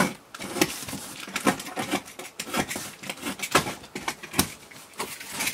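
Packing tape being ripped off a cardboard shipping box and the flaps pulled open by hand: an uneven run of sharp crackles and tearing sounds.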